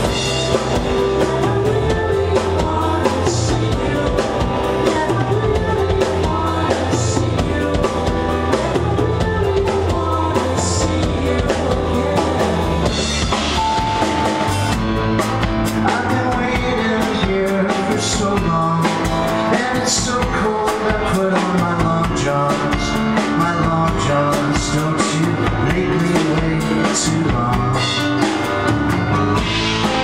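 Live band playing a song on grand piano, electric bass guitar and drum kit, with a steady beat and cymbal crashes every few seconds.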